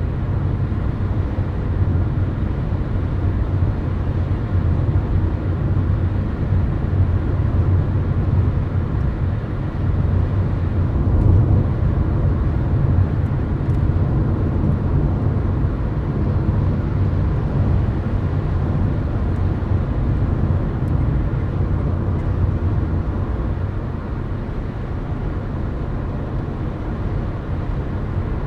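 Steady low rumble of a car's tyres and engine heard from inside the cabin while cruising at highway speed, with no sudden events; it eases slightly near the end.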